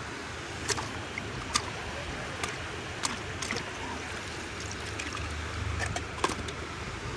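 Water sloshing and trickling over a low rumble, with about ten short sharp clicks scattered through it.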